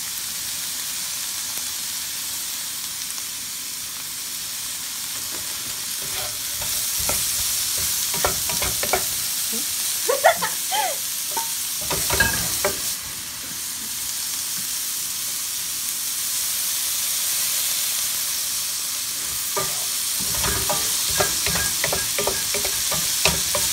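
Diced vegetables sizzling steadily in a hot nonstick frying pan, with a wooden spatula scraping and clicking against the pan as they are stirred in two spells, about seven to thirteen seconds in and again in the last few seconds.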